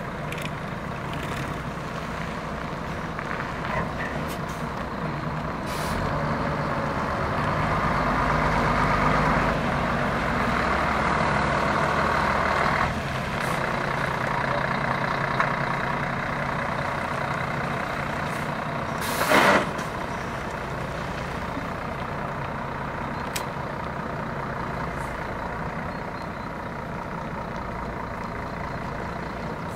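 Scania K124 coach's six-cylinder diesel engine idling steadily, louder for several seconds about a quarter of the way in. About two-thirds of the way through, a short, loud hiss of compressed air is released from the coach's air system.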